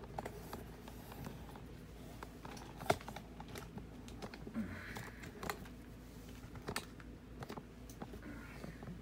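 Irregular light clicks and taps of small parts and tools being handled on a workbench, with one sharper knock about three seconds in, over a faint steady hum.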